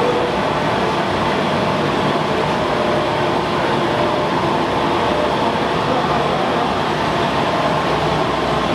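Two-colour stack-type flexo printing machine running at a steady speed, feeding the printed web over its rollers: an even mechanical noise with faint steady tones in it.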